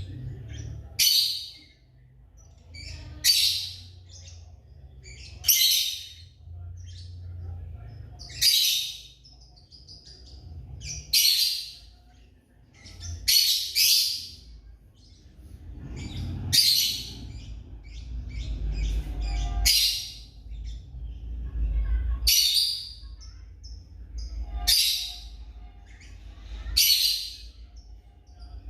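Lovebirds giving shrill, high calls, one every two to three seconds, about a dozen in all, over a low rumble.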